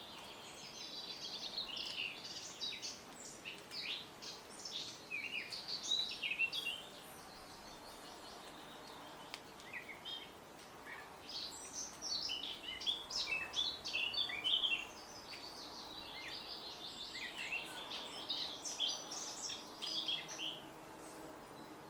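Bird song: three long runs of rapid, high, varied twittering notes with short pauses between them, over a faint steady background hiss.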